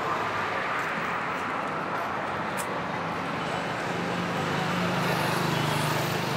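Steady road traffic noise, with a vehicle's engine hum growing louder in the second half.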